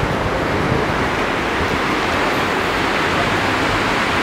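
Steady rushing roar of a fast white-water mountain river.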